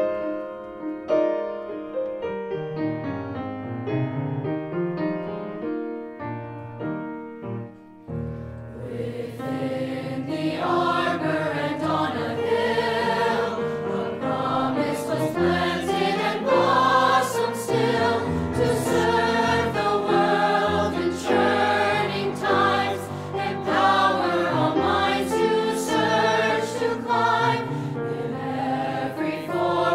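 A mixed upper-school choir singing the school anthem with piano accompaniment. The piano plays alone for about the first eight seconds, then the voices come in.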